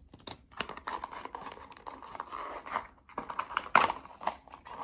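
Blind-box packaging handled and opened: small plastic bag and cardboard box crinkling, rustling and clicking, with one sharper, louder crackle about four seconds in.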